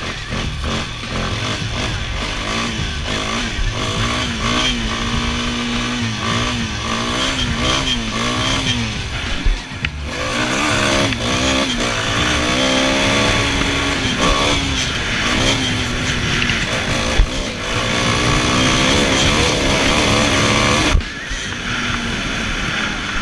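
2004 Yamaha Warrior 350 ATV's single-cylinder four-stroke engine revving up and down on and off the throttle while ridden, with wind rumbling on the helmet camera. The sound jumps abruptly about ten seconds in and again near the end.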